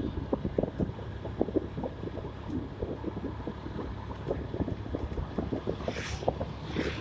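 Wind buffeting the microphone of a moving vehicle, a constant rumble with irregular thumps. Near the end come two short hissing whooshes as oncoming vehicles pass close by.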